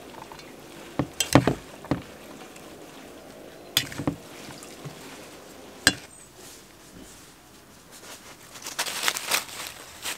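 A wooden spoon and a metal spoon tossing a shredded cabbage-and-carrot salad in an enamel bowl. Sharp knocks and clinks of the spoons against the bowl come about one, two, four and six seconds in, and a longer stretch of crisp rustling of the leaves comes near the end.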